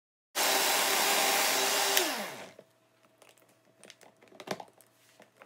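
Countertop blender running at full speed, blending celery pieces and water. About two seconds in it is switched off with a click, and the motor whine falls in pitch as the blades spin down. A few faint taps follow.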